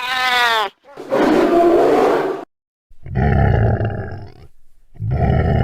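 A string of synthetic sound effects: a short pitched tone that sweeps up and down, then three separate rough, rumbling bursts of about a second to a second and a half each, with short silences between.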